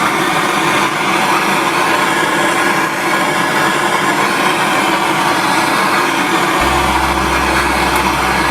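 Steady, loud noise from a melting furnace running, ahead of a silver pour. A low hum joins about two-thirds of the way through.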